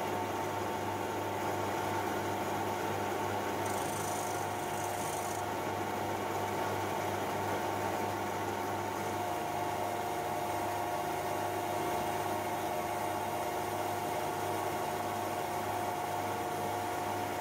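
Metal lathe running steadily, its motor and spindle gearing giving a constant hum with a steady whine. A carbide tool starts facing the end of a spinning hard alloy bar near the end, and there is a brief hiss about four seconds in.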